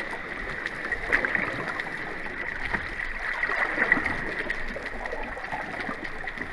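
Underwater ambience from a dive camera: a steady watery hiss with scattered faint clicks.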